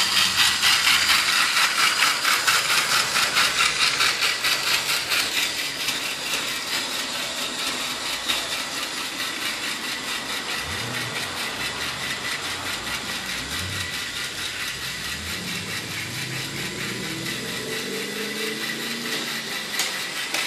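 Battery-driven TOMY Trackmaster toy tank engine (a 2012 Thomas chassis) running along plastic track: its small electric motor and gears whir with a fast, even clicking. It is loudest in the first few seconds and settles quieter after about six seconds.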